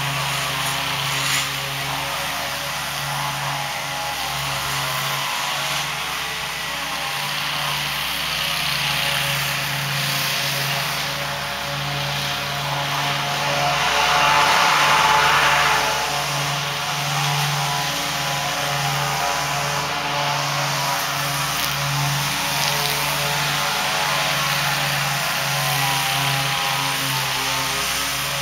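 Great Dane stand-up commercial lawn mower running steadily under load while cutting grass, a constant engine drone that swells briefly about halfway through.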